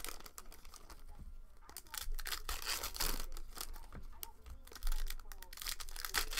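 Foil wrapper of a basketball trading-card pack being torn open and crinkled by hand, in several bursts of crackling.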